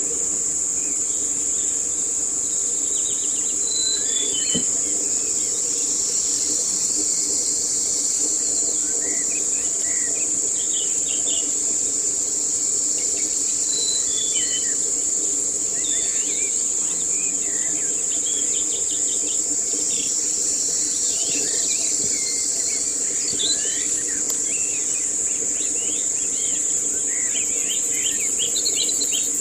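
A steady, high-pitched drone of insects, with many short bird chirps and calls scattered over it and a low steady hum underneath.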